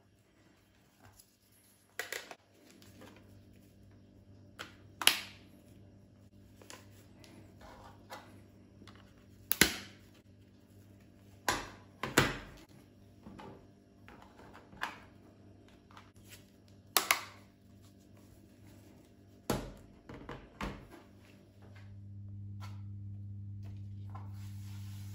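Sharp clicks and light knocks, about a dozen spread out, as wood-veneer hexagonal light panels and their small plastic connectors are handled, slid and set down on a wooden tabletop. A steady low hum comes in near the end.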